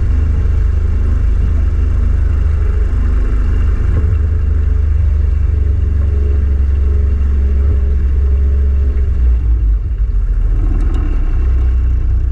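A small boat's motor running steadily while the boat is under way, heard as a loud, constant low rumble.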